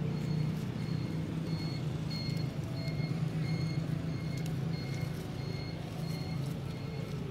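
Short high beeps repeating evenly about twice a second, over a low steady hum.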